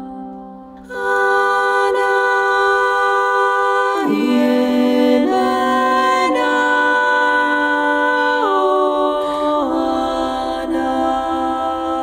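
Slow, calm background music of long held notes that move to new pitches every second or two, coming in fuller about a second in.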